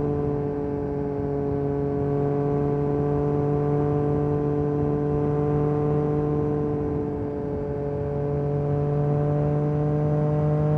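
Yamaha MT-09 SP's three-cylinder engine through an Akrapovic carbon exhaust, running at steady cruising revs; its pitch creeps up slightly in the first few seconds, then holds.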